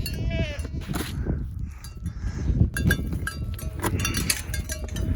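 Goats and sheep bleating, hungry for their grain. About three seconds in, a run of quick clinks and rattles follows.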